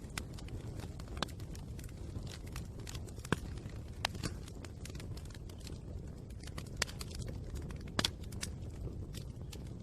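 Wood fire burning with a steady low rumble and irregular sharp crackles and pops, the loudest a few seconds apart, about three seconds, four seconds and eight seconds in.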